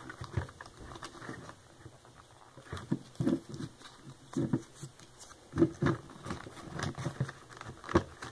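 Hands handling a small Lego brick safe and a paper banknote: irregular light taps and clicks of plastic bricks, with some paper rustling as the bill is folded and pushed inside.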